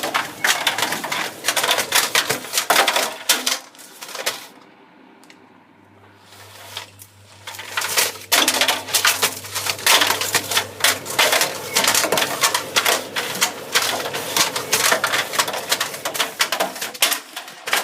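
Assorted small objects rattling and clattering rapidly as they tumble in a running tumble dryer drum, easing off briefly about four seconds in. A low steady motor hum runs underneath in the second part.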